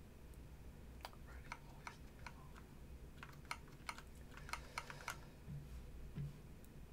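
Computer keyboard keys pressed in a quick, irregular run of light clicks, mostly between about one and five seconds in.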